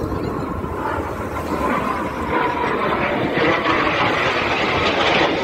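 Jet engine of a Red Arrows BAE Hawk flying past overhead: a steady rushing noise with a faint whine, growing louder as the jet comes closer.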